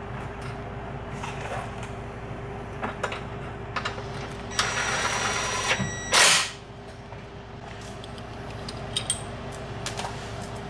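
An impact wrench runs on the exhaust bolts for about two seconds near the middle, with a steady whine and then a short loud burst. Scattered small metal clicks and clinks from hand tools come before and after, over a steady background hum.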